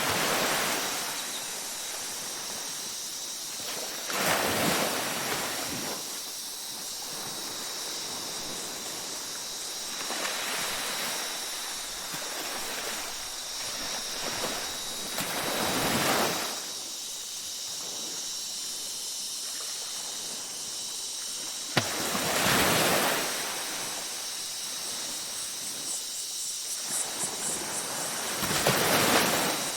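Waves washing onto a beach at night, each surge swelling and fading about every five to six seconds over a steady hiss, with a steady high thin tone above it. A single sharp click comes about two-thirds of the way through.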